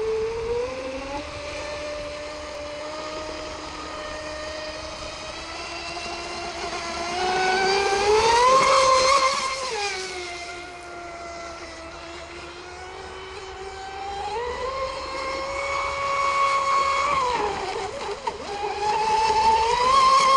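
Radio-controlled model racing boat's motor running at speed, its pitch climbing and dropping again and again as the boat accelerates down the straights and slows into turns. It is loudest about eight seconds in and near the end.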